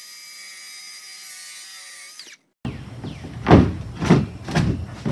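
A power saw's motor whine, steady and high-pitched, starting to wind down just before it cuts off. After a brief gap come three loud knocks about half a second apart.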